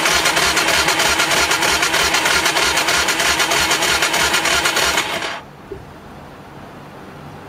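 Motorbike's electric starter cranking the engine fast and loud for about five seconds, then cutting off abruptly, followed by a faint low hum. The bike is failing to start, with the battery voltage dropping under cranking.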